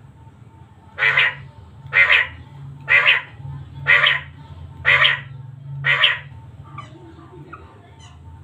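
A quail calling six times, one short call about every second, over a low steady background hum.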